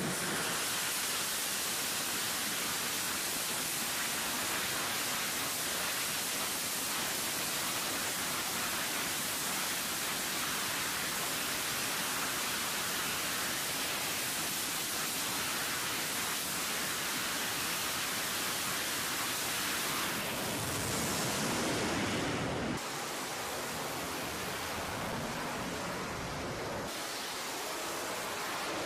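F/A-18's twin jet engines running at full power as a steady, loud rushing noise, held while the jet waits on the catapult for launch. The noise changes abruptly twice near the end.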